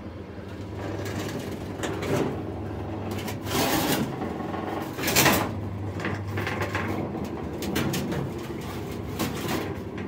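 Electric fan for the fireplace's air circulation running with a steady hum, with irregular clattering and rustling on top, loudest about five seconds in; the fan is noisy and still being fixed in place to quiet it.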